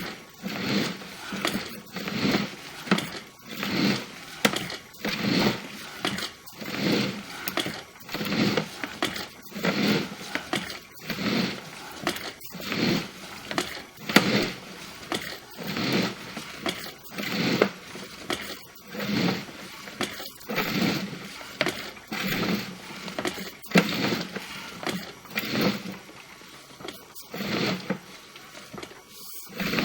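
Sewer inspection camera's push cable being fed by hand into a sewer line through a basement cleanout, a rhythmic scraping and rustling about once every second as each length of cable is pushed in.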